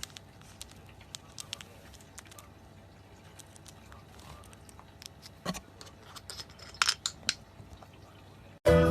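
Faint, irregular small clicks and taps, with a cluster of louder ones a little past the middle. Music cuts in suddenly just before the end.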